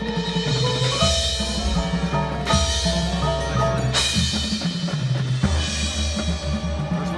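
High school marching band playing: brass with a strong bass line over drums and percussion, with sharp accented hits about every second and a half.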